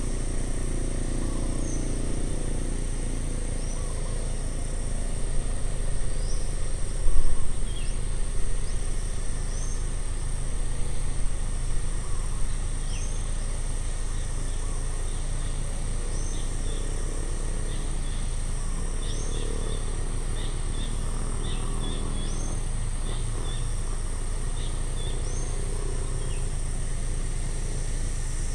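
Outdoor ambience by a road: birds chirping again and again over a steady high insect drone and a low rumble, with a louder swell in the low rumble about five to twelve seconds in.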